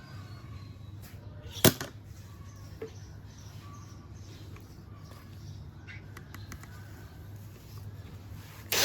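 A low steady hum under small clicks of handling, with one sharp click about two seconds in; near the end a small electric drill starts up.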